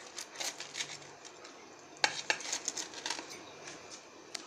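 A knife cutting through a crisp pan-toasted sandwich on a plate: irregular crunches, scrapes and clicks of the blade against the plate, in two short spells, the louder one starting about two seconds in.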